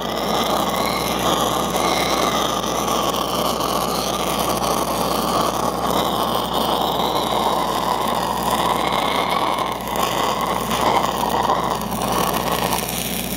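Stick-welding arc of a 1/8-inch 5P+ (E6010) electrode at about 100 amps running steadily as it finishes the root pass on a pipe threadolet, over a steady low hum. The arc stops just before the end.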